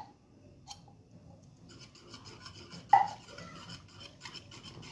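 Stirring milk in a saucepan on the stove, the utensil scraping and rubbing against the pan in a steady rasp that starts about two seconds in, with one clink against the pan about three seconds in.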